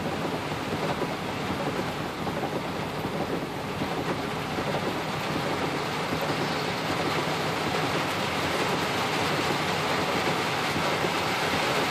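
Heavy rain falling on a car's roof and windshield, heard from inside the car as a steady, even hiss.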